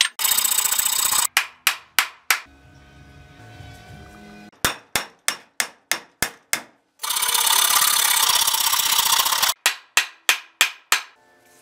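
A file rasping a wooden axe handle in two bursts, broken by runs of sharp hammer blows, about three a second, driving and seating the axe head on the new handle.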